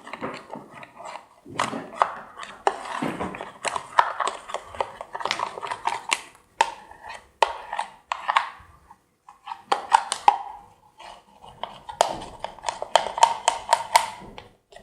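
A spatula stirring glue mixed with slime activator and water in a small container, clicking and scraping rapidly and irregularly against the container's sides, with a brief pause about nine seconds in.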